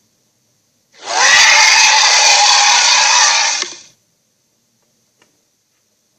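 Giant gorilla monster roar sound effect: one harsh, raspy roar of about three seconds, starting about a second in with a brief rise in pitch.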